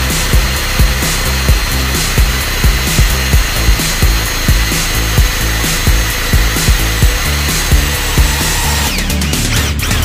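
Electric drill running steadily as it bores into a metal threaded rod, a high whine that slides down in pitch near the end, over background music with a steady beat.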